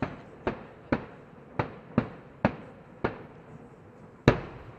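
Aerial firework shells bursting in a rapid series: about eight sharp bangs roughly half a second apart, each fading quickly, with a short pause and then the loudest bang near the end.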